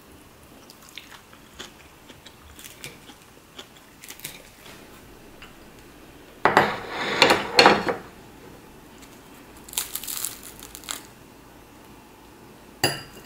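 Eating at a table: a few light clicks of a fork on a plate, then loud crunching of toasted bread as it is torn apart by hand, in two bouts a couple of seconds apart, with a sharp clink near the end.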